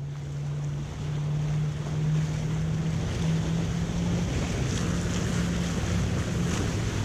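Triple Mercury 300 hp outboard engines running at speed with a steady drone, over the rush of water and wind. The sound grows louder about a second in.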